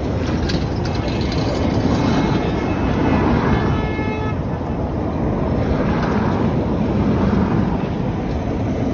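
Busy street noise with wind rumbling on the microphone, and a brief faint tone, like a distant horn, about four seconds in.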